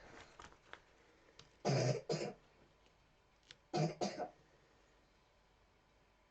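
A person coughing twice, about two seconds apart, each cough coming in two quick bursts.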